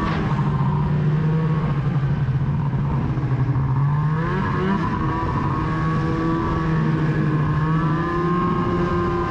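Snowmobile engine running steadily at low trail speed, heard from the rider's seat. Its pitch wavers a little around the middle and rises slightly near the end.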